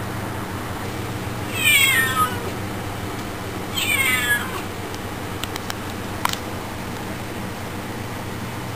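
Siamese kitten meowing twice, about two seconds apart, each meow a short call falling in pitch, aimed at a housefly it is hunting. A few faint clicks follow over a steady low hum.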